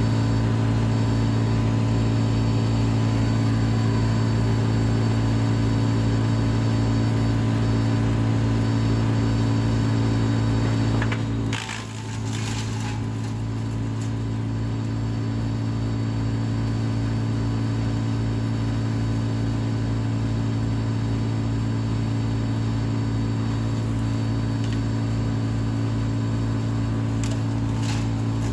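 Vermeer BC700XL wood chipper running steadily at full throttle, a loud, even engine drone with a fast low pulse. About halfway through the level dips briefly, with a few short sharp cracks then and again near the end.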